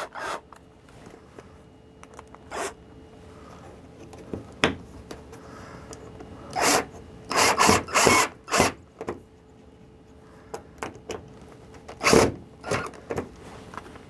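Cordless drill driving a screw through a wooden clamp block into a wooden upright in short bursts, with a cluster of bursts in the middle and another near the end.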